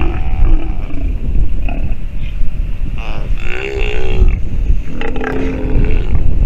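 Steller sea lions calling: several short growls, then a long, wavering call about three seconds in and another shorter one about five seconds in, over a steady low rumble of wind on the microphone.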